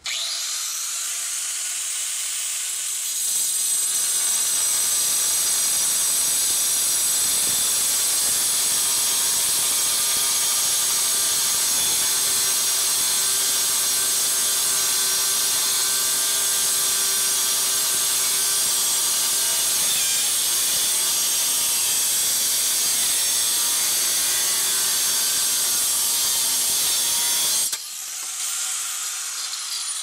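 Hercules 4.5-inch angle grinder with a Lenox Metal Max blade. It whines as it runs free for about three seconds, then cuts steadily through the steel head of a seat-belt anchor bolt. Near the end it comes off the cut and winds down with a falling whine.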